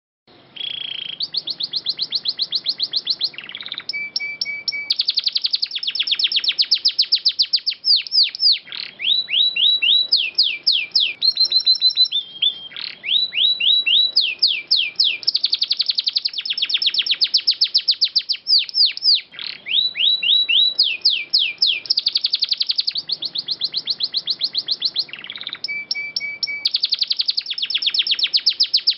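Domestic canary singing a long, continuous song made of rapid trills, each run a different note repeated many times, including runs of quick downslurred whistles. The song starts about half a second in.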